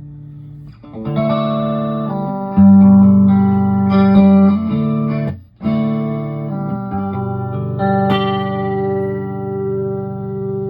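Electric guitar chords played and let ring through a freshly repaired A/DA Flanger effect. A faint held note gives way to strummed chords about a second in, with a brief break midway before the chords resume.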